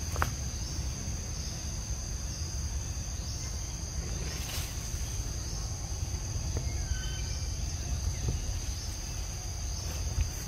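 Steady high-pitched insect drone over a low rumble, broken by two short cracks, one just after the start and one about four and a half seconds in.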